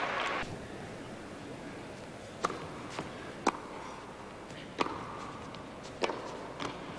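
Tennis rally: a ball is struck by rackets and bounces on an indoor court, giving sharp single knocks roughly a second apart. At the start, crowd noise stops about half a second in.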